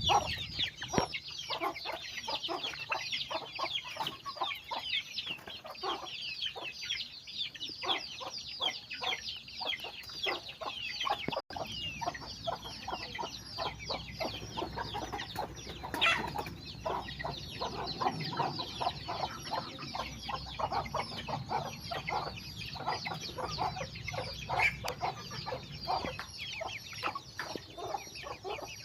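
A flock of chickens: hens clucking under the constant high, falling peeps of many chicks. The sound drops out for an instant about a third of the way in.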